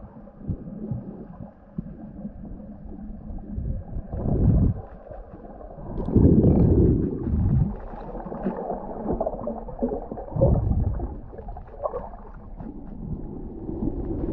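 Muffled sloshing and gurgling of water, coming in irregular surges, the loudest about six to eight seconds in and again near the middle of the second half.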